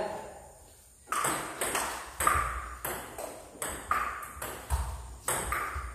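Table tennis rally: the ball clicking sharply off the paddles and bouncing on the table. It sets in about a second in and runs on as an even run of about two to three clicks a second.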